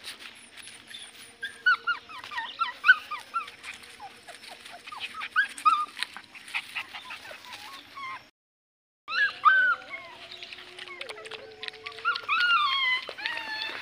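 Puppy whimpering and yipping in a string of short, high cries that bend in pitch. The sound breaks off completely for under a second about eight seconds in.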